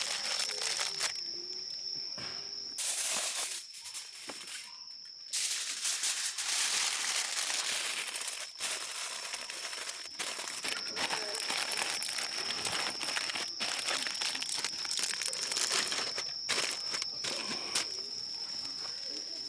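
Irregular rustling and crinkling, like bags or packaging being handled, over a steady high-pitched tone. The rustling drops away briefly twice near the start.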